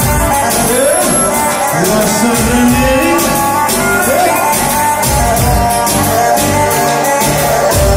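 Loud music with a steady drum beat and a melody line that slides up and down between held notes.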